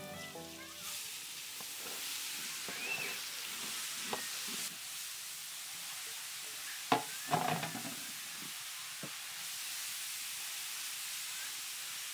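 Grated carrots sizzling in hot oil in a large metal wok as they are tipped in and stirred with a wooden spatula. A few sharp knocks against the pan about seven seconds in.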